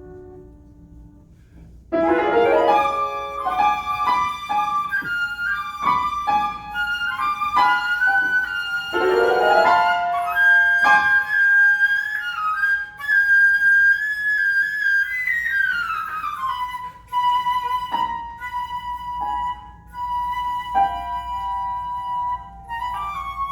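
Flute and piano playing classical music: low piano notes die away, then about two seconds in the flute comes in with a run of quick notes and moves on to long held notes, sliding down in pitch about two thirds of the way through.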